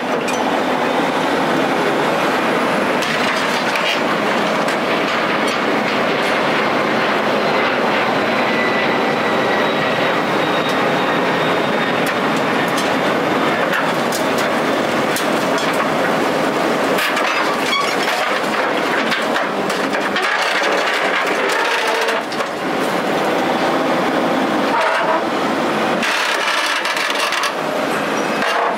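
Steady, loud mechanical noise with scattered sharp metallic clicks and cracks and a faint high squeal running through it.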